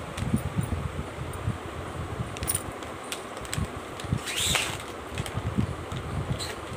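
Steady whir of a fan in the room, with soft low bumps throughout and one brief squeak about four and a half seconds in that rises and falls in pitch.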